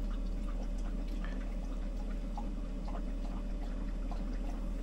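Steady low hum and hiss of room tone inside a camper van, with faint, irregular small ticks scattered through it.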